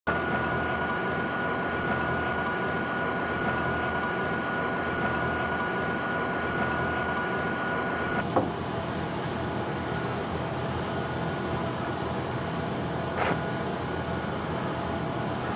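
Charcoal fire burning hard in a brazier where iron rods are heated, a steady rushing noise with a thin steady whine through the first half. A sharp knock comes about eight seconds in and a fainter one near the end.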